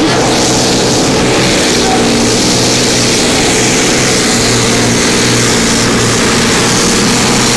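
Supercharged V8 engine of a Modified-class pulling tractor running flat out under full load while pulling the sled, a loud steady note held at high revs without rising or falling.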